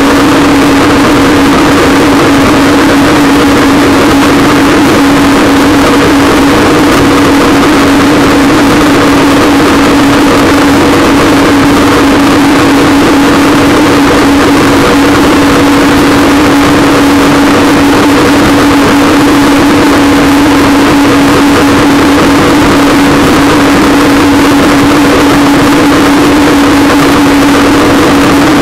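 Waverunner engine running at a steady cruising speed, an unchanging hum, under a constant rush of wind and water over the camera mounted on the craft.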